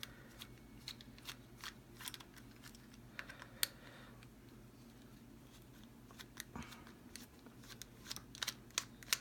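Faint, scattered clicks and small ticks of a Phillips screwdriver working small screws out of a plastic remote-control case.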